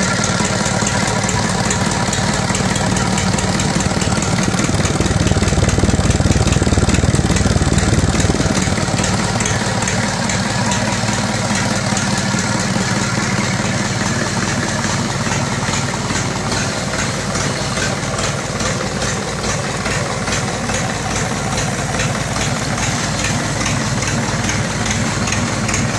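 Mitsubishi 4D34 four-cylinder diesel engine running, mostly at a steady idle, with a brief rise in revs a few seconds in that lasts about four seconds before it settles back to idle.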